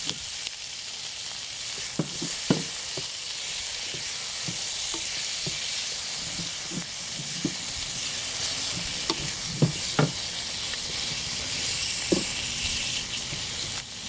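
Sliced onion and tomato wedges sizzling in hot oil in a wok, a steady hiss, while a slotted spatula stirs them and now and then knocks and scrapes against the pan.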